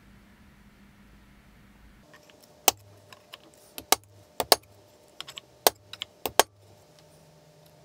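About a dozen sharp, irregular clicks and taps of a small hand tool against screws and hardware on an acetal plate, bunched over about four seconds and then stopping. Before them there is only a faint steady hum.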